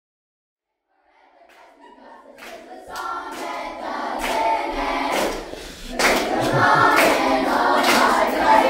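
A group of voices singing together, fading in out of silence about a second in and growing louder, with sharp percussive hits roughly once a second.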